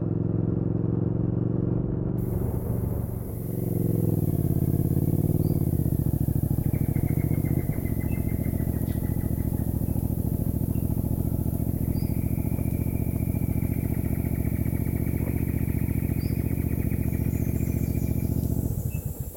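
Cruiser motorcycle engine running at low speed. Its pitch drops and shifts about 3 to 6 seconds in as the bike slows, then it runs steadily at low revs and is switched off just before the end.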